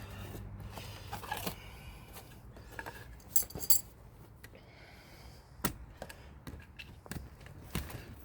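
Scattered light clicks and metallic clinks as a 3/8-inch steel line and metal tools are handled and repositioned for bending, with a few sharper taps among them.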